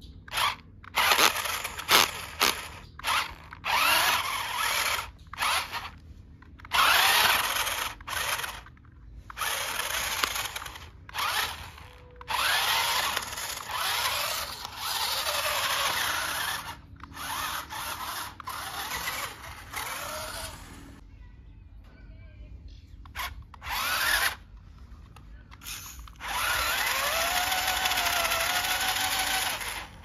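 The small electric motor and gearbox of a toy RC rock crawler whine in many short stop-start bursts as the throttle is worked, the pitch rising and falling with each burst. A longer steady run comes near the end.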